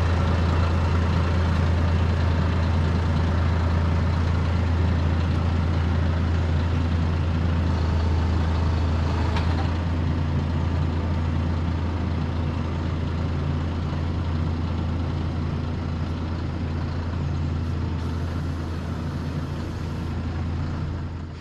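John Deere utility tractor's diesel engine running steadily with a deep hum while the tractor drives up and sets a log on a sawmill with its front-loader grapple, then backs away. The engine eases off a little in the second half.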